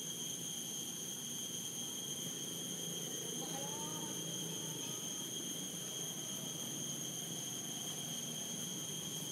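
Steady high-pitched insect drone, one held tone with overtones, over a low background rumble. A faint brief call slides up and down about three and a half seconds in.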